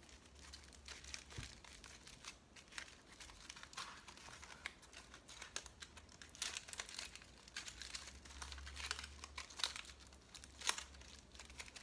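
Aluminium foil crinkling and crackling faintly and irregularly as hands squeeze and mould it.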